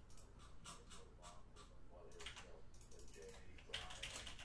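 Faint, irregular clicks of typing on a computer keyboard, coming quicker and denser near the end.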